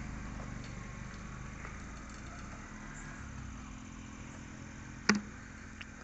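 A steady low mechanical hum, with one sharp click about five seconds in.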